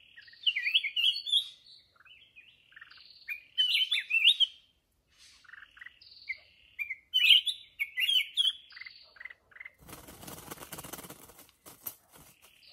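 Black-crested bulbuls singing: three loud, warbled song phrases about three seconds apart, with short notes between them. About ten seconds in, a rough rustling noise takes over until the end.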